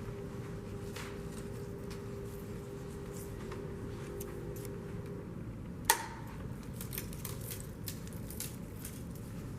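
Hands handling a film scanner and its film reel: light clicks and rustles, with one sharp click about six seconds in. A faint steady hum stops about five seconds in.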